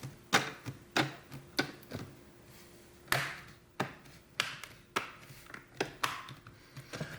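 Plastic display bezel of an Acer C731 Chromebook being pressed back on, its clips snapping into place one after another: about a dozen sharp clicks, roughly two a second.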